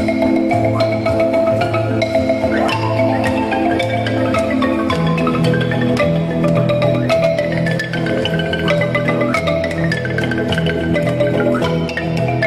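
Background music: a marimba-like melody of struck notes over a repeating bass line.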